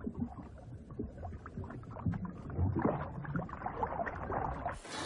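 Water sloshing and splashing with uneven, irregular surges, as a sea snake swims and comes up to the surface. Just before the end the sound cuts abruptly to a steady hiss.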